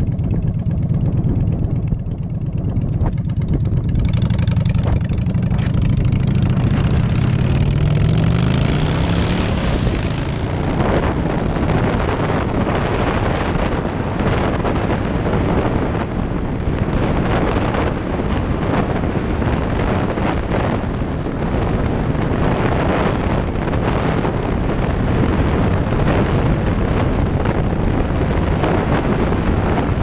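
Motorcycle engine idling, then rising in pitch as the bike pulls away and accelerates a few seconds in. From about ten seconds in, heavy wind noise on the microphone at road speed covers most of the engine.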